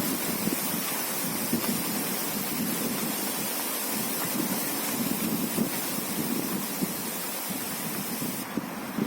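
Strong gusty wind blowing across the microphone, with an irregular low rumbling flutter and a steady hiss.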